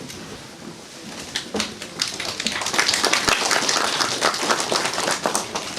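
Audience applauding in a hall, a few scattered claps at first, then fuller clapping from about a second and a half in.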